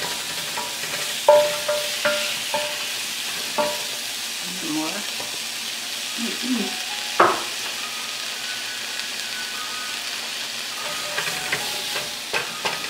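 Sliced onions sizzling as they sauté in oil and butter in a hot pan, stirred with a silicone spatula that knocks and scrapes against the pan now and then.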